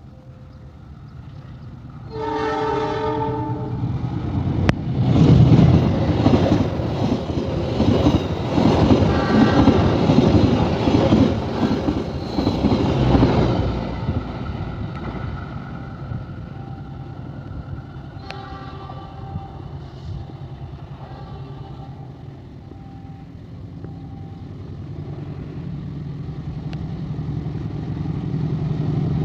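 Diesel locomotive sounding a short horn blast as it approaches, then passing close by with a loud rush of engine noise and wheel clatter for about nine seconds before fading away.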